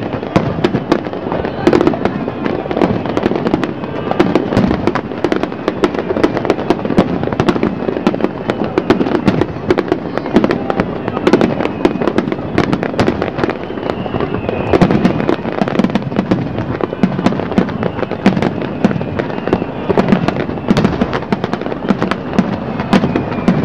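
Aerial firework shells bursting in a rapid, continuous barrage, many sharp reports overlapping with no pause.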